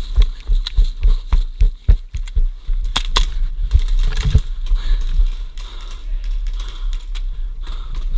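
A gunfight with gas blowback airsoft pistols: a string of sharp clicks and knocks with low thumps of movement, and two sharp cracks about three seconds in.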